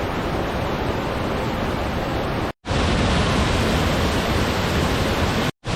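Rushing creek water and waterfall, a loud, steady, dense rush. It is cut to silence briefly twice, about two and a half seconds in and just before the end, then resumes the same.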